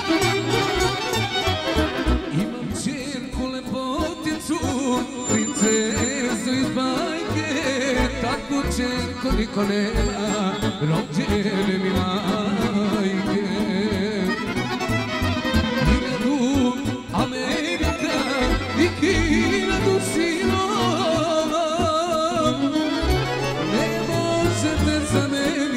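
Live band music played through PA speakers: a male singer sings into a handheld microphone over an electric violin and the band's rhythm.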